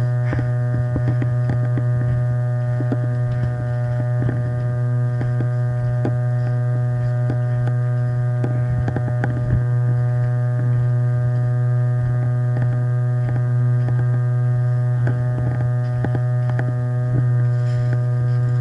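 Loud, steady electrical hum: one strong low tone with many even overtones, unchanging throughout, with scattered short clicks over it.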